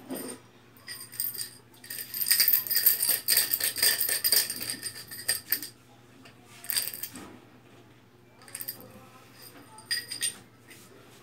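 Pair of arnis practice sticks clattering during a two-stick drill: a dense, rattling run of clacks with a metallic ringing about two seconds in, lasting some three and a half seconds, then shorter bursts near seven and ten seconds.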